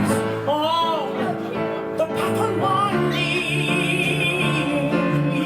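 Live piano accompaniment under a singer's wordless vocalising, with gliding vocal swoops early on and then a long, wavering high note from about three seconds in.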